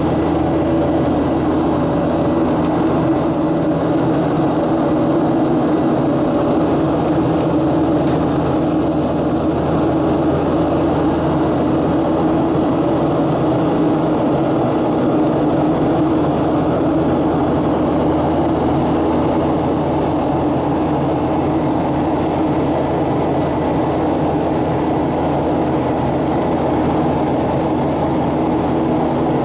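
Airliner cabin noise in flight: the steady drone of the engines and rushing air, with a low hum that does not change.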